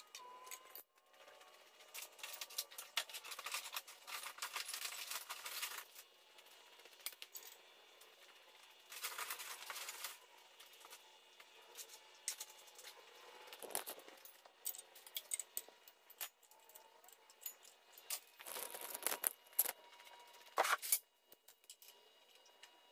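Hand ratchet clicking in several bursts as bolts are taken off an engine, with clinks of metal tools and parts in between.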